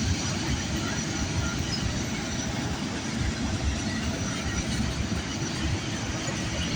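Freight train cars rolling past close by: a steady rumble and rattle of steel wheels on the rails.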